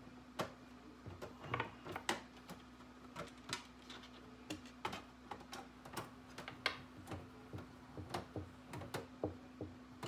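Screwdriver backing two small screws out of a computer's bottom cover: irregular light clicks and ticks, a few a second, over a steady low hum.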